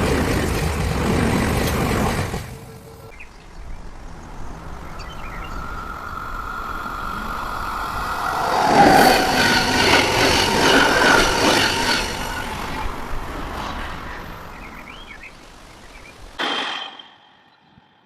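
Railway train noise: a loud rumble that cuts off abruptly about three seconds in, then a train passing that builds to its loudest around the middle, with a steady high tone over the noise. It fades, gives a short loud burst near the end, then stops.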